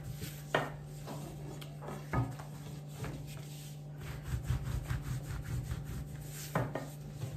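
A long wooden rolling pin (oklava) rolling and rubbing back and forth on a thin sheet of floured dough on a tabletop, with a few sharp knocks. This is the sound of yufka being rolled out by hand for börek.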